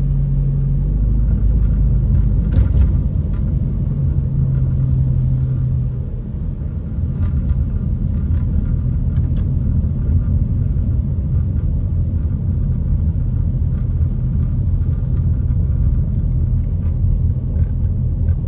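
Car interior noise while driving on a wet road: a steady low rumble of engine and tyres, with a steady hum that drops away about six seconds in and a few faint ticks.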